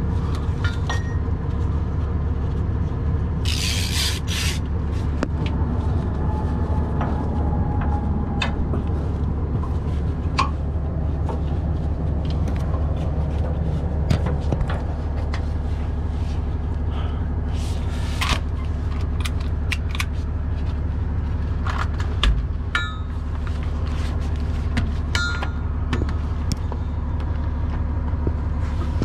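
Heavy diesel truck engine idling steadily, with scattered metallic clinks and knocks of tools against the truck's underside and a short hiss about four seconds in.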